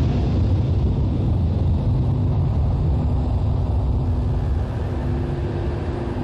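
Low, steady rumble of a twin rear-engined jet airliner on its takeoff run and climb-out.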